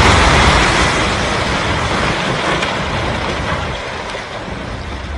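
Rumble of a multi-storey building collapsing in a demolition, with debris still coming down; loud at first and fading steadily away.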